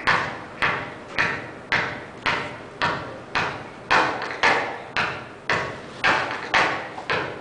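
Basketball dribbled on a stage floor: a steady bounce a little under two times a second, each bounce ringing on in a large hall.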